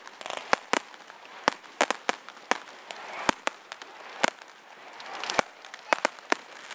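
Fireworks going off: an irregular string of sharp bangs, roughly two a second, with a crackling hiss swelling between them a few times.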